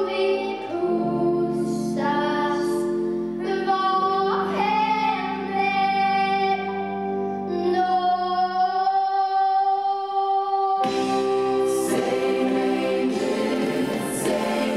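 A stage-musical song sung by a young girl's voice over a backing track, with long held notes over sustained chords. About eleven seconds in, a fuller ensemble comes in with chorus voices.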